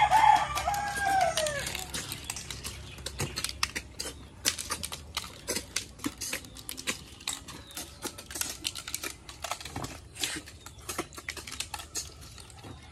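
A rooster crows once at the start, one arching call lasting about a second and a half. After that comes a scattered patter of small sharp clicks: snail shells being picked up and dropped against the plates as the snails are eaten.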